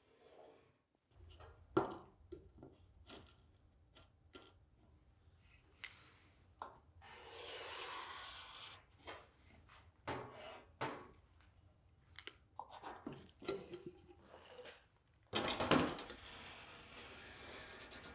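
Scattered light taps and clicks of layout tools and steel pieces being set down and shifted on a sheet of steel, with a few longer scraping rubs, the loudest about sixteen seconds in.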